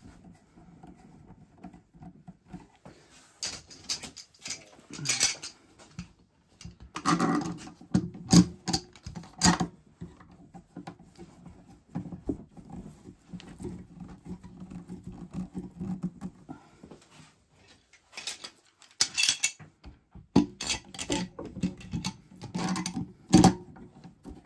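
Steel screw clamps being handled and tightened down onto a wooden caul: irregular metallic clicks, knocks and rattles in bursts, with quieter handling noise between.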